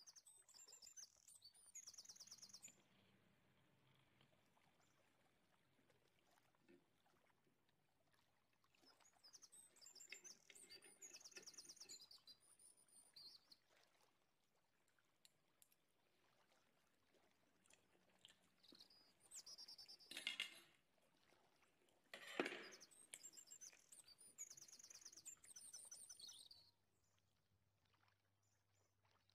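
Faint bird chirps and trills in short phrases, coming and going, with a couple of light knocks in the last third.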